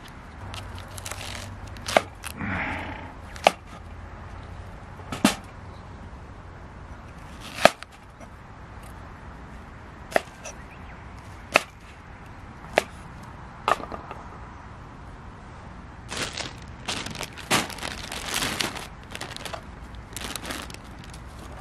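Cooking-prep handling: about eight sharp single knocks at uneven intervals of one to two and a half seconds, such as a knife or utensil striking a board. Near the end come a few seconds of rustling and light clatter.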